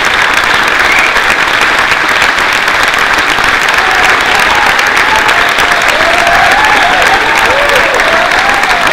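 Audience applauding steadily, a dense even clapping that holds at the same level throughout.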